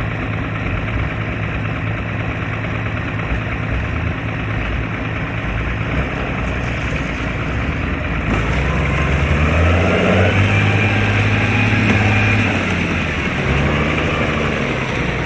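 Diesel engine of a piece of heavy machinery running steadily, then revving from about eight seconds in, its pitch rising and falling for several seconds before settling.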